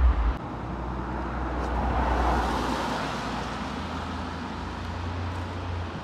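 A car passing close by on a wet road, its tyre noise swelling to a peak about two seconds in and then fading. Low wind rumble on the microphone runs underneath, heavier for a moment at the start.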